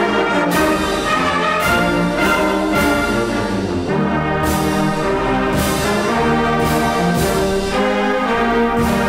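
Brass band music: sustained chords and a melody, the notes changing every half second or so.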